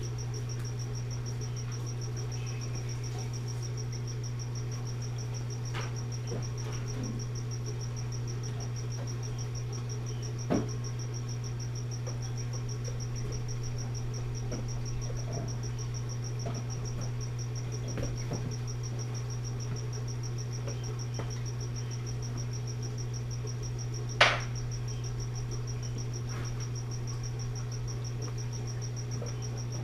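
Steady low hum with a thin high-pitched whine over it, the running sound of reef-aquarium equipment such as pumps; two sharp clicks, one about ten seconds in and one later on.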